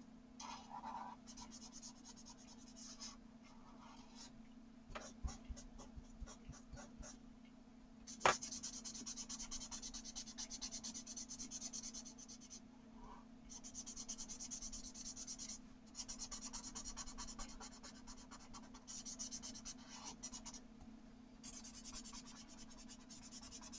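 A coloured-pencil blender is rubbed back and forth over coloured pencil on sketchbook paper, making quick scratchy strokes. They come sparsely at first, then in steady runs of a few seconds, with a single small tap about a third of the way in. A faint steady hum lies underneath.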